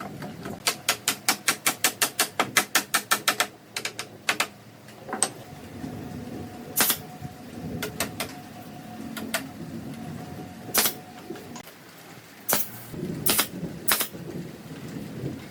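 A fast run of about twenty sharp taps, roughly six a second, then scattered single knocks further on.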